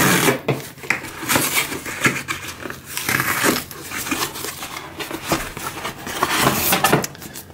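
Corrugated cardboard mailer being torn open along its tear strip: a run of rough, irregular ripping and scraping, then the torn top being pulled apart.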